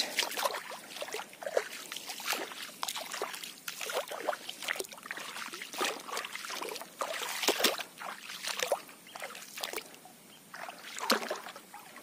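Small irregular splashes and trickles of shallow swamp water, a scatter of short wet strokes with no steady rhythm.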